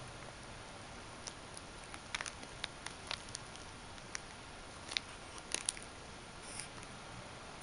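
Irregular light clicks and taps as a kitten bats at and bites a coiled spring toy, with a quick cluster of sharper clicks a little past halfway.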